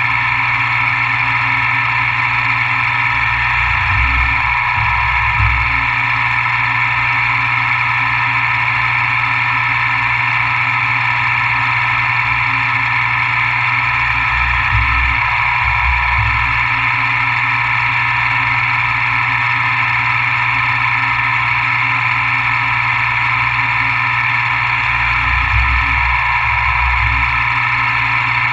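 CNC milling machine running steadily while machining a fixture plate, a dense even machine whine with a low rumble rising three times, about ten seconds apart.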